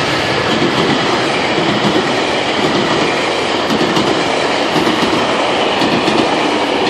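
GO Transit express train passing close at speed: a loud, steady rush of its coaches' wheels on the rails.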